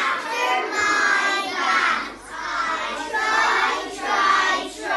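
A group of children's voices in chorus, singing together in phrases about a second long with short breaks between them.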